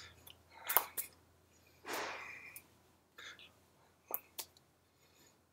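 Hands smacking together while signing: two pairs of sharp slaps, about a second in and about four seconds in. A breathy, whisper-like mouth sound comes around two seconds in.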